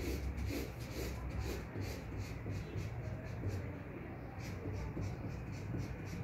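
Posca paint marker scratching over brown kraft paper in short, quick hatching strokes, about three a second, over a low steady hum.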